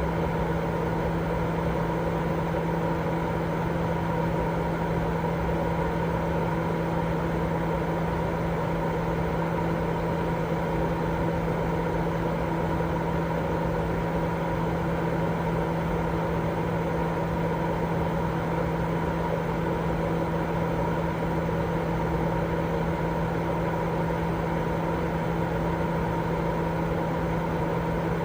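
Continuous sleep-aid white noise: an even, unbroken rushing hiss with a steady low hum and a fainter higher tone running through it.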